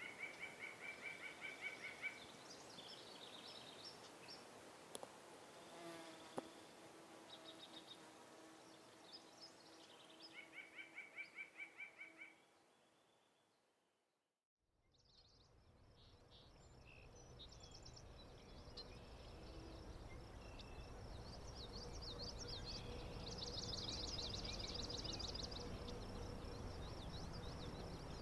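Faint countryside birdsong: short repeated trills and chirps. About halfway it fades out to silence and fades back in to a busier chorus of high chirps over a low steady rumble.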